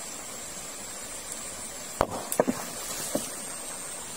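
Steady rush of shallow river water, with a steady high whine above it. About two seconds in comes a quick cluster of short splashes and knocks, with one more about a second later, as a hand reaches into the shallows by the rocks.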